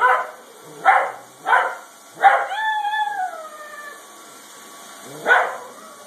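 Italian Greyhound barking sharply, three quick barks, then a fourth that stretches into a drawn-out howl falling in pitch for about a second and a half, and one more bark near the end.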